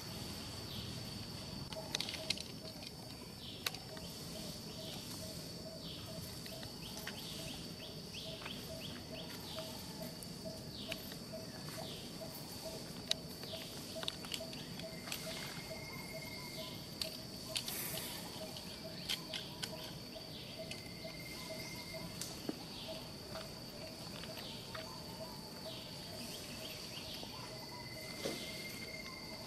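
Outdoor natural ambience: a steady high insect drone, a low call repeating about three times a second, and scattered short chirps and clicks.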